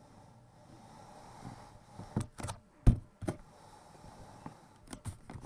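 A handful of knocks and thumps as the recording device is bumped and moved about. The loudest comes about three seconds in.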